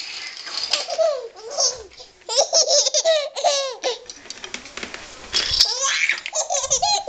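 An 11-month-old baby girl in a fit of laughter, with rapid high-pitched bursts of giggling that come in waves and a quieter lull about midway.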